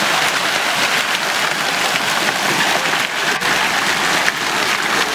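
Fountain water splashing steadily.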